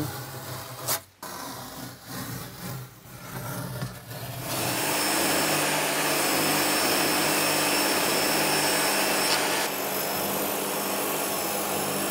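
Masking tape being peeled off painted wood in irregular tears and rustles. About four and a half seconds in, a steady electric workshop machine starts running with a faint whine and carries on.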